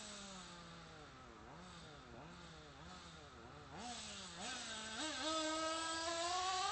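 Small engine of a radio-controlled model revving in repeated quick blips, its pitch jumping up and sagging back again and again. About five seconds in it climbs to a higher, louder, steadier pitch.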